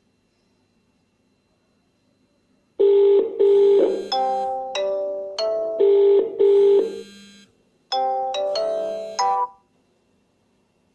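Phone ringtone melody: short electronic notes in two phrases, starting about three seconds in, pausing briefly near the middle, then stopping about a second before the end.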